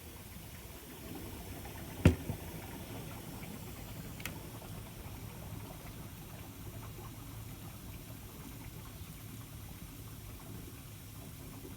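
Washing machine running with water moving in the tub over a steady low hum, and one sharp knock about two seconds in.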